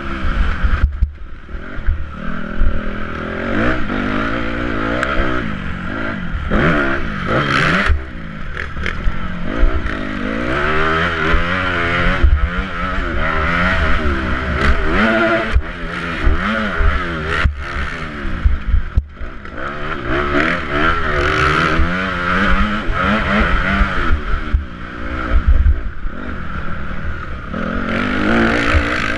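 Motocross bike engine under hard racing throttle, its revs climbing and falling over and over through the gears, with several brief drops in sound. Wind rumbles on the helmet camera's microphone throughout.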